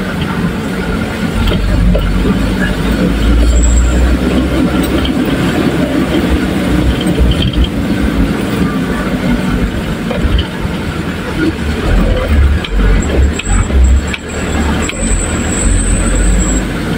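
Truck driving slowly over a rutted, muddy dirt road: a steady low engine rumble that swells and dips, with scattered knocks and rattles as the truck jolts over the ruts.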